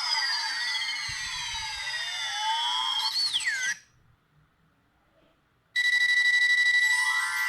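Philips 760 mobile phone playing ringtones: a tune of swooping electronic pitch glides ends about three and a half seconds in, and after a two-second pause another ringtone starts, a fast-pulsing steady beep with a run of stepped notes.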